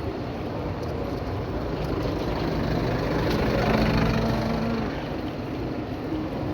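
A motor vehicle's engine passing by over steady street and wind noise, growing louder to a peak about four seconds in, then fading.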